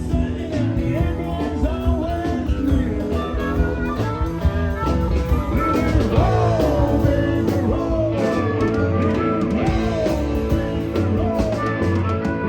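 Live rock band playing a song with electric guitar over a steady beat, the lead line bending and sliding in pitch.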